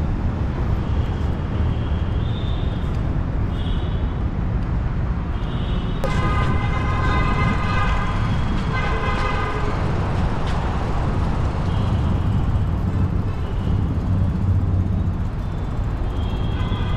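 Steady low rumble of road traffic, with a vehicle horn sounding about six seconds in: one long blast of about two and a half seconds, then a short second toot.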